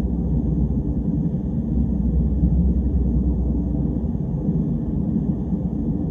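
Steady low rumble of an ambient atmosphere sound effect, dull and even, with almost nothing in the higher range and no distinct events.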